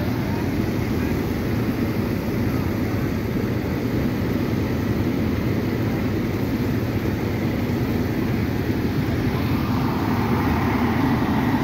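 Fire truck's diesel engine running steadily, a little louder near the end.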